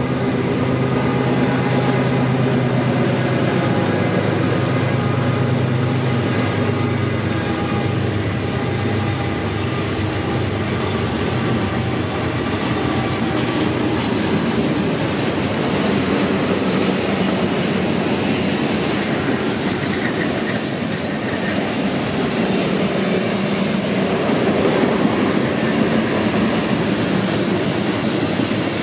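Train passing: a locomotive's engine runs with a steady low hum at first, then the cars roll by with a continuous rumble and high-pitched wheel squeals in the second half.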